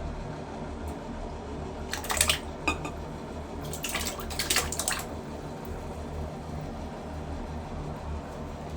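Toilet flushing: water dripping and running in a small room, with short splashing bursts about two seconds in and again from about four to five seconds in, over a steady low hum.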